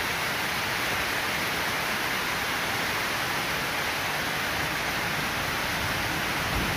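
Heavy rain falling steadily, a constant even rush with no let-up.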